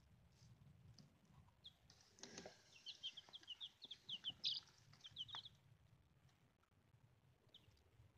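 Young chicks peeping: a quick run of short, high peeps from about two to five seconds in, with one brief rustle among them.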